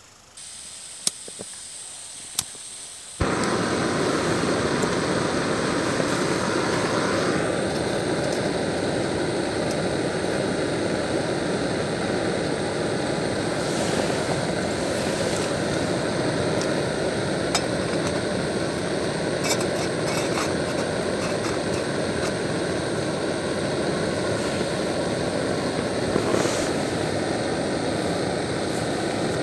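Backpacking stove on a gas canister: a faint hiss of gas and two sharp clicks, then the burner lights about three seconds in and burns with a loud, steady rushing sound.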